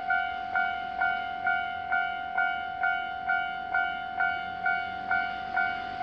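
Railway level crossing warning bell ringing steadily, about two strikes a second over a sustained two-note ring, signalling that a train is approaching and the crossing is closing.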